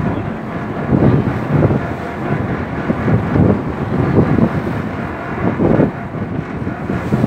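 Wind buffeting the microphone on the open deck of a boat, a loud low rush swelling in irregular gusts about once a second.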